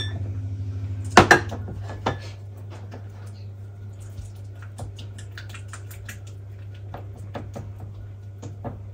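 Kitchen clatter of dishes and utensils: two sharp knocks about a second in and another shortly after, then light taps and clinks, over a steady low hum.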